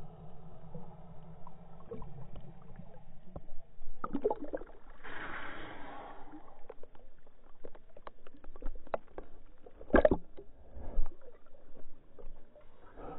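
Water sloshing and splashing against a GoPro's waterproof housing as it rises from just below the surface to the waterline: muffled underwater sound at first, a rush of splashing about five seconds in, then knocks of water on the case, the loudest about ten seconds in.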